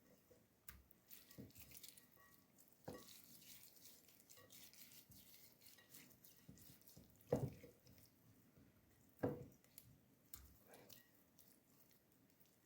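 Faint kitchen handling noises during food preparation: a few soft knocks, the two loudest a couple of seconds apart past the middle, among light scattered ticks.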